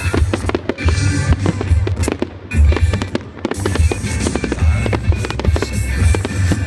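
Fireworks going off in rapid bangs and crackles, over pop music with a steady bass beat.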